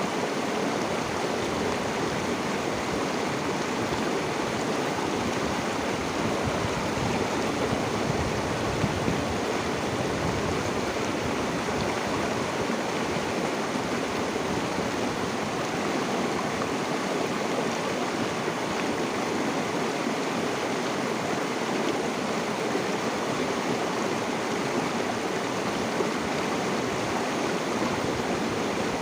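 River water flowing steadily, a constant rushing babble.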